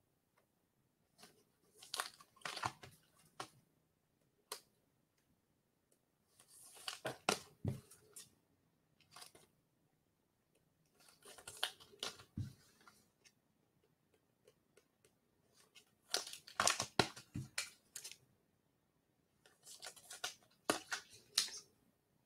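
Five bursts of crinkling and rustling, about four seconds apart, from trading cards and their packaging being handled.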